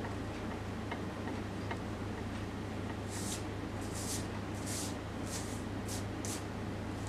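Six short, hissy rubbing strokes of a hand blending graphite shading across drawing paper, starting about three seconds in. Under them run a steady low hum and faint, evenly spaced ticks.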